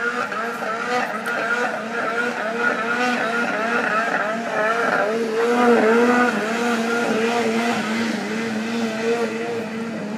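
Polaris IQR 600 snowmobile's two-stroke engine running hard as the sled skims across open water. Its pitch keeps wavering up and down, and it is loudest about six seconds in.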